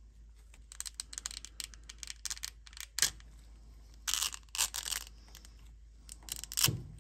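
Thin cured-resin 3D-print supports snapping and crackling as a printed part is pried off its support raft by hand: runs of small cracks with a sharper snap about three seconds in and a louder one near the end.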